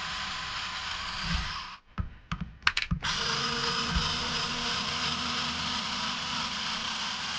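Small clicks and taps of a hex driver and screws on an RC car's plastic chassis during teardown, a handful of them clustered about two to three seconds in, over a steady hiss that briefly drops out while they sound.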